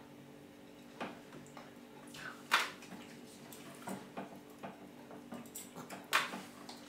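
Small wet mouth smacks and clicks of a baby being spoon-fed, with the plastic spoon tapping at lips and plate; a few sharper clicks stand out, the loudest about two and a half seconds in and another near six seconds.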